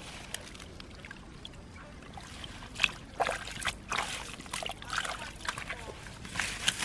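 Hands sloshing and splashing in a shallow hole of muddy water. It starts fairly quietly, then from about three seconds in come a run of short, irregular splashes.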